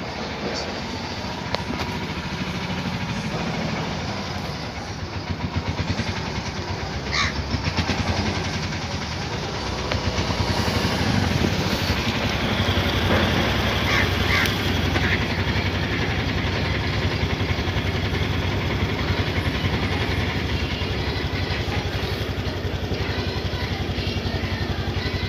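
Motorcycle engine idling close by, a steady low running note that grows louder about ten seconds in, over general road noise.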